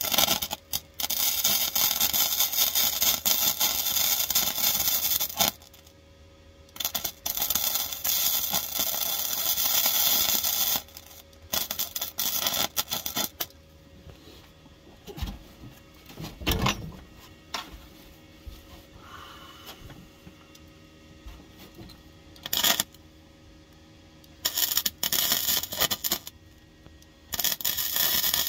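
MIG welder crackling as it stitch-welds thin steel floor panel, in runs of a few seconds at a time with short pauses between. There is a low knock about halfway through.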